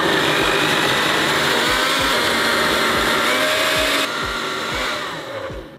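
Countertop blender blending a thick sauce of tinned tomatoes, dried chillies and garlic, starting abruptly and running steadily at full speed. It eases off about four seconds in and spins down just before the end.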